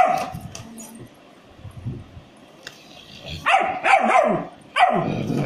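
German Shepherd puppy barking: one bark at the start, then a run of three barks from about three and a half seconds in.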